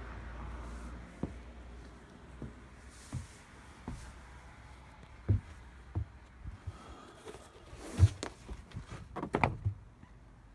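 Footsteps and knocks on a fiberglass boat's deck and hatch, scattered every second or so. The loudest thump comes about eight seconds in, with a quick cluster of knocks near the end; a low hum dies away in the first second.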